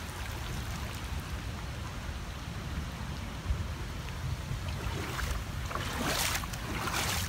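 Footsteps splashing through floodwater, a few splashes in the last couple of seconds, over a steady rush of water and low wind rumble on the microphone.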